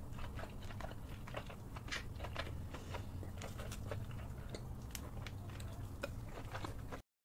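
Close-miked mouth sounds of eating king crab legs dipped in thick sauce: many short wet smacks, clicks and slurps as the meat is sucked from the shell. The sound cuts off abruptly near the end.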